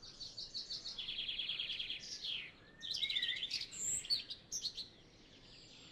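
Songbirds singing: a fast trill of repeated high notes, then several quick chirps and slurred whistles, dying away about five seconds in.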